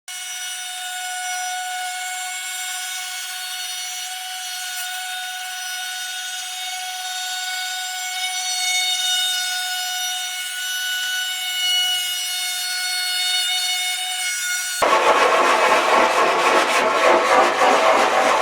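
Router fitted with a large 5/8-inch-radius round-over bit, turned down to about 15,000 RPM, running with a steady high whine. About fifteen seconds in it changes suddenly to a louder, rougher noise as the bit cuts the wooden tabletop edge.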